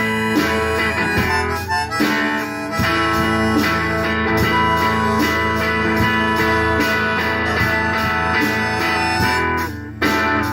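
Live band playing an instrumental break with no vocals: strummed guitars under a lead instrument holding long notes. There is a brief drop about ten seconds in.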